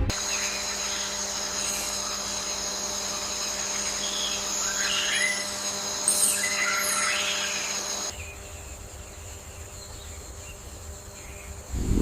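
Natural field ambience: a steady high insect trill with bird chirps over it. About two-thirds of the way in, the trill and chirps stop and a quieter low rumble takes over.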